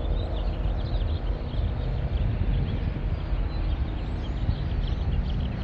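A chorus of many small birds chirping in quick, overlapping calls, over a steady low rumble of idling truck engines.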